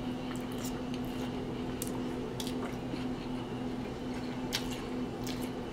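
A person chewing a mouthful of grilled chicken sandwich: soft, wet mouth clicks and squishes, over a steady hum in the room.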